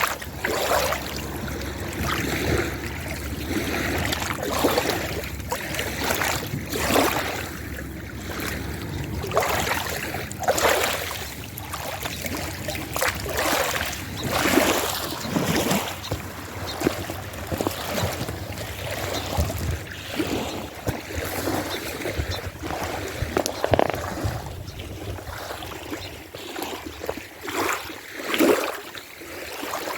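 Small waves lapping against a rocky lake shore, irregular splashes every second or so over a steady wash.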